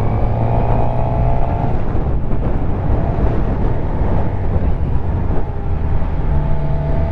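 Suzuki GSX-R750 inline-four engine running on the move under heavy wind noise on the helmet microphone. The steady engine note fades into the wind rush about two seconds in and comes back near the end.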